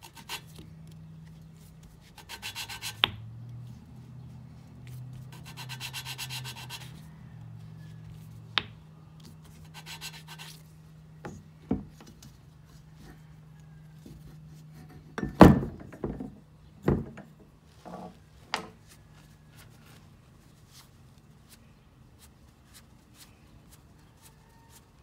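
An engine valve is lapped against its seat in a Honda Accord V6 cylinder head with a suction-cup lapping stick and grinding compound: a scratchy grinding rub in three spells during the first ten seconds. This is the valve face being ground to a seal. A few sharp knocks follow about halfway through, the loudest near the middle.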